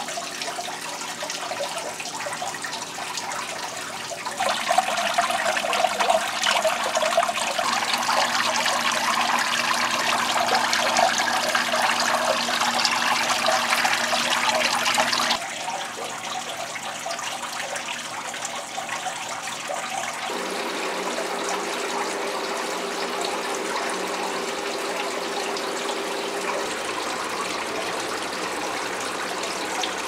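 Water from the evaporative cooler's small pump trickling and splashing steadily down the cooling pad into the plastic tote reservoir, louder from about 4 to 15 seconds in, over a faint steady hum.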